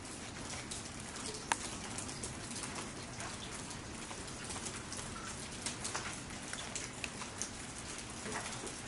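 Rain falling, a steady hiss with many scattered drips and ticks.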